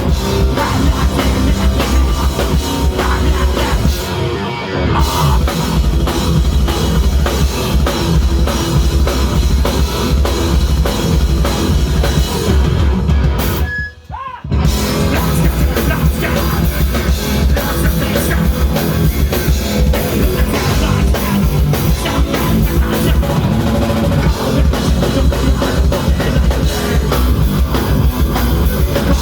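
Heavy rock band playing live with pounding drums, bass and distorted guitar. The music cuts out briefly about halfway through, then comes back in.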